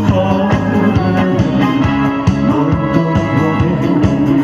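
Instrumental backing track of a Korean pop song played over a PA system, with electronic organ or keyboard and guitar over a steady beat.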